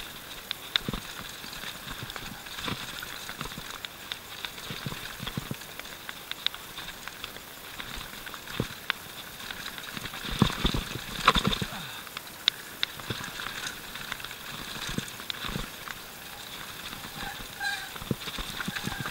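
Mountain bike running fast down a dirt forest trail: irregular knocks and rattles of the bike over roots and bumps, over a steady hiss of tyres and wind, with a louder cluster of knocks about ten to eleven seconds in.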